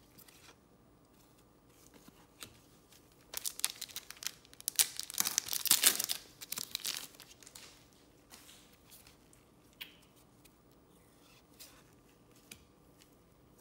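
Crinkling and tearing of a trading-card pack's foil wrapper for a few seconds, followed by a few faint clicks of cards being handled.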